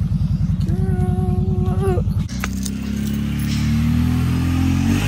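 An ATV engine idles with a fast, even putter while an electric pole saw's motor whines for about a second and a half. After a sudden break about two seconds in, the ATV engine runs and rises in pitch as it speeds up.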